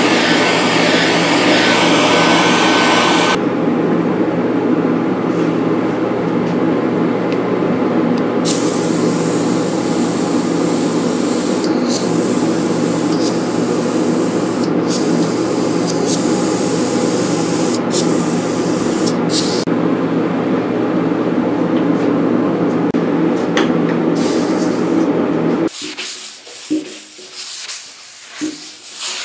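Airbrush compressor running with a steady hum while the airbrush hisses, its air cut on and off several times in the middle stretch. The compressor stops suddenly near the end, leaving a few faint rustles.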